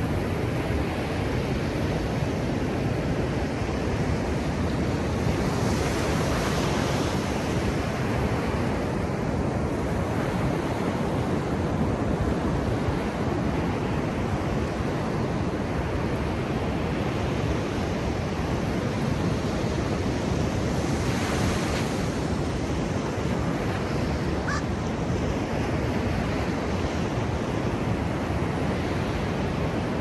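Ocean surf breaking and washing up a flat sandy beach: a steady rush of waves that swells twice, about a fifth of the way in and again past the middle.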